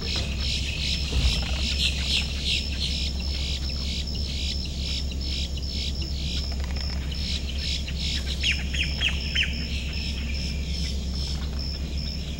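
Several wild birds chirping and calling over an evenly pulsing high note, with a quick run of falling whistled notes about eight to nine seconds in. A low steady hum lies underneath.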